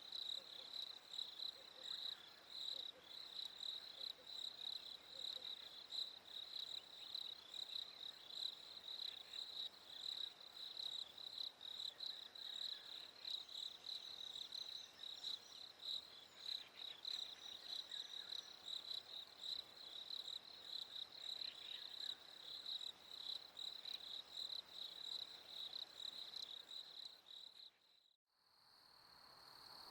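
A chorus of crickets chirping in a fast, even, high-pitched pulse. Near the end it fades out into a moment of quiet, then a different night chorus begins.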